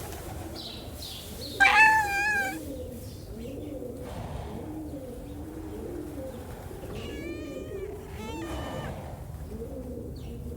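Kitten meowing: one loud, high meow about a second and a half in, then two fainter meows around seven and eight seconds.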